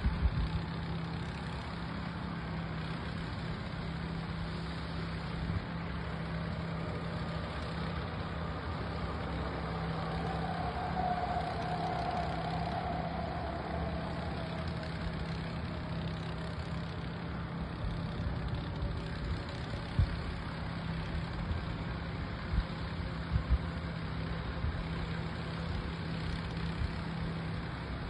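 Construction-site machinery engine running steadily at night, a continuous low drone with a constant hum. A faint whine sinks in pitch around the middle, and a few sharp knocks come about 20 and 23 seconds in.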